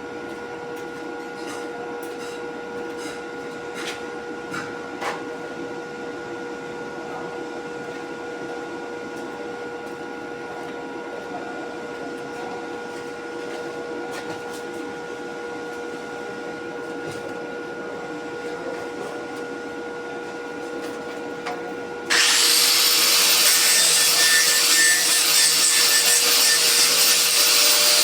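Steady machine hum with a few light clicks; about 22 seconds in, a much louder, steady abrasive metalworking hiss starts suddenly and runs on.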